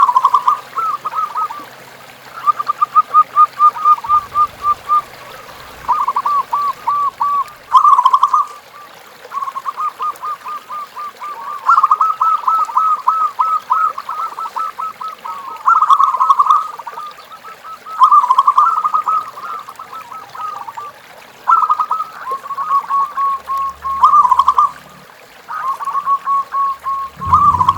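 Zebra doves (perkutut) cooing: fast runs of short, rippling notes repeated phrase after phrase, with brief pauses between phrases.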